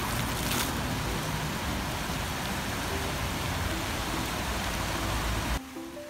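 Steady rush of water from a row of fountain jets spraying into a shallow reflecting pool. It cuts off suddenly near the end, where music begins.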